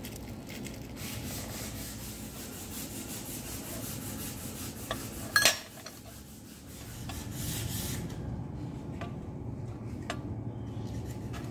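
Handling noise of thin steel square tubing on a steel work surface: rubbing and scraping, with one loud metallic clank about five seconds in. After that a low steady hum, and two light clicks near the end as welding rods are laid on the steel.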